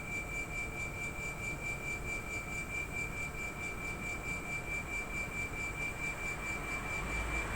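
Air conditioner outdoor unit's compressor running with a steady high-pitched whine and a regular pulsing a few times a second, an abnormal compressor noise.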